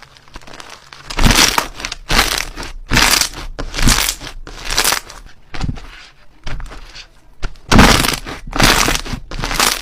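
Slime being squeezed and pressed by hand, giving a series of noisy crackling squishes about once a second, starting after about a second of quiet.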